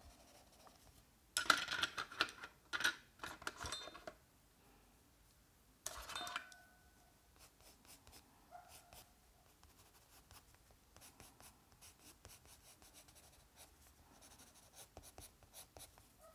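Caran d'Ache Supra watercolor pencil shading on journal paper in quick, scratchy back-and-forth strokes. The strokes come in louder bursts during the first few seconds, then go on lighter and fainter.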